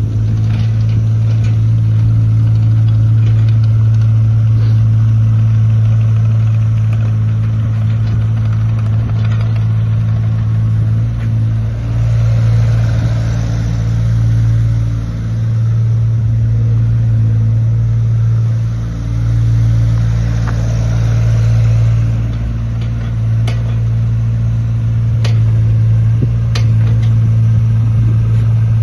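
A 2008 JCB 8020 mini excavator's diesel engine running steadily, its note dipping briefly a few times in the middle.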